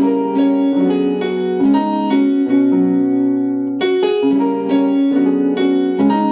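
Keyboard playing a passing-chord progression that leads to the 4 chord in F sharp major: a run of sustained chords, a new one struck every second or so.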